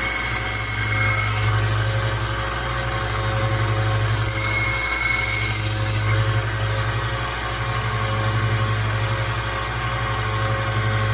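Rikon 1x30 belt sander running steadily with a motor hum; twice a knife blade is pressed to the belt, giving a grinding hiss of a second or two each, at the start and about four seconds in, as the edge is ground to raise a burr.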